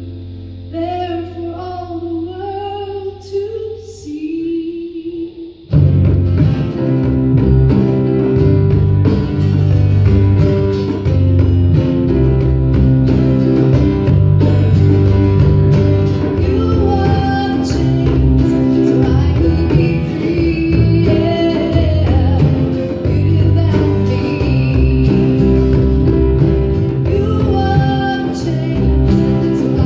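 Live church worship music: a woman singing with acoustic guitar, electric bass and djembe. About six seconds in, the band comes in much louder and fuller, with steady hand-drum beats under the voice.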